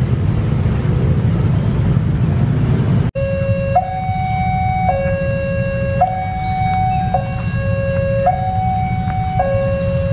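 Steady low rumble of a train. About three seconds in, an electronic railway level-crossing warning alarm starts and keeps alternating between a higher and a lower tone, each held about a second, over the rumble of an approaching diesel locomotive.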